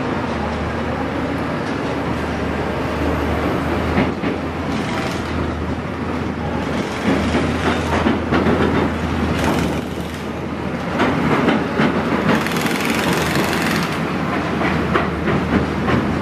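A rail work train carrying gantry cranes and concrete sleepers rolls along the track, with a steady low hum and scattered clanks and wheel clicks from the wagons. A burst of hiss comes about three quarters of the way through.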